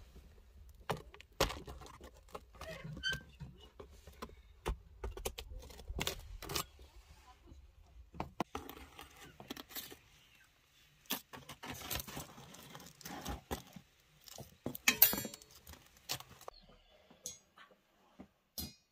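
Metal rod and utensils knocking, clinking and scraping against a clay tandoor oven and its stacked flatbread, in irregular sharp strokes, with a louder cluster of clinks about three-quarters of the way through.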